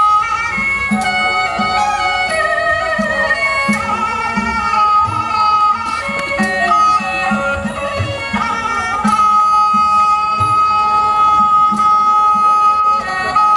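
Traditional Thai dance music: a pitched melody line that moves between notes and then holds one long note through much of the second half, over a steady pattern of low drum strokes.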